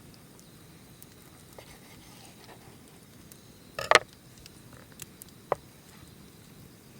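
A few sharp clicks and one louder knock about four seconds in, over a faint steady background with a thin high hum.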